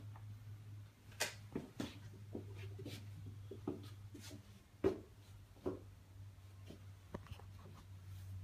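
Footsteps and handling noise of someone walking through rooms with a phone: scattered light knocks and taps, the loudest about five seconds in, over a steady low hum.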